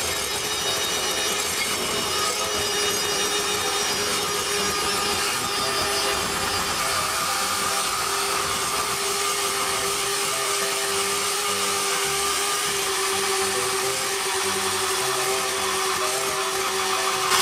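Electric hand mixer running steadily at high speed, its beaters whipping egg whites and sugar in a glass bowl: an even motor whine.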